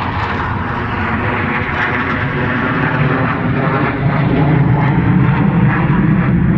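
Military aircraft flying over, a steady engine noise that grows louder about four seconds in.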